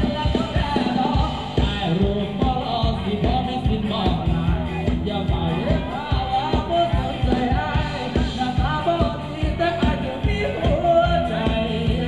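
Thai ramwong dance music from a live band, with a singer over a steady beat.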